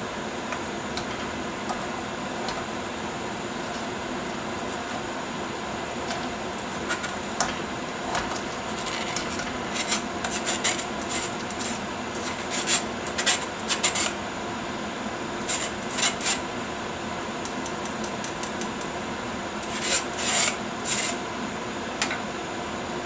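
A spoon scraping and rubbing against a wire-mesh sieve, pressing curdled milk through it into a pot. The scraping comes in clusters of short strokes, through the middle and again near the end, over a steady hiss.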